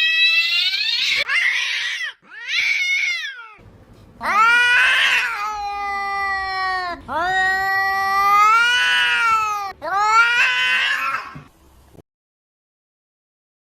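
A cat caterwauling: a string of about six long, drawn-out yowls, several rising in pitch, stopping about twelve seconds in.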